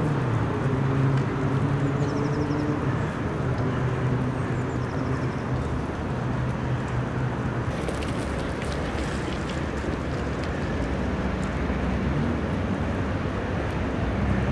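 Steady city traffic noise, with a vehicle engine humming for the first few seconds before it fades into the general din.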